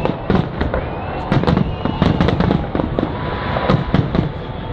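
Fireworks going off in a rapid, irregular string of bangs and crackles, with a parked car's alarm siren wailing along with them.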